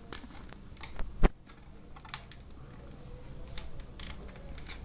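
Light, irregular plastic clicks and taps as hands work the wire connectors and plastic speaker housing inside an opened LED TV, with one sharp, loud click a little over a second in.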